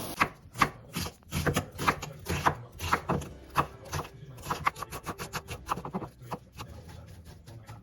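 Kitchen knife chopping on a cutting board in quick, uneven strokes, about three or four a second, growing softer toward the end.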